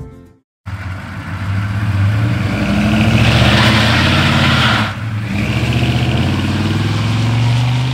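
1982 Chevy C20 pickup's 6.2-litre diesel V8 driving past, the engine sound swelling to its loudest as the truck goes by about four seconds in.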